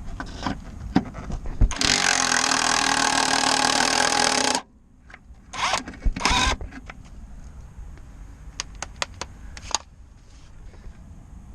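Cordless impact wrench loosening a fastener on a car's strut mount. It runs for about three seconds, then gives two short bursts, followed by light metallic clicks.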